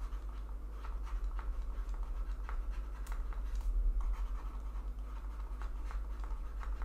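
Light taps and scratches of a stylus writing on a pen tablet, coming as scattered, irregular clicks over a steady low hum.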